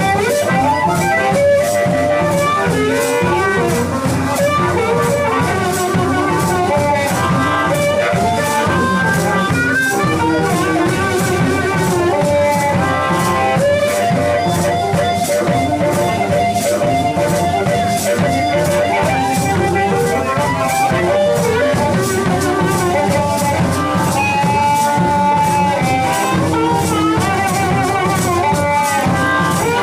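Live blues band playing: an amplified blues harmonica, cupped against a hand-held microphone, carries the lead with long, bending notes over a hollow-body electric guitar and a steady drum beat.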